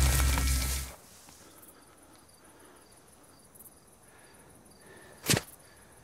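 A loud low rumble with music cuts off abruptly about a second in. Faint, scattered high chirps like night insects follow. Near the end comes a single sharp crack.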